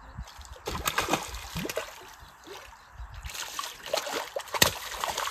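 A hooked rohu thrashing at the surface of shallow water at the bank as it is played in, giving irregular splashes: a flurry about a second in, then a longer, louder bout in the last two seconds.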